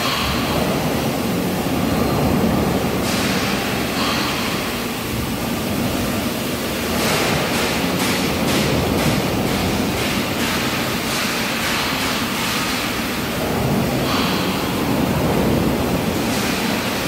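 Steady, dense noise of factory-floor machinery, with a scattering of faint ticks and knocks in the middle.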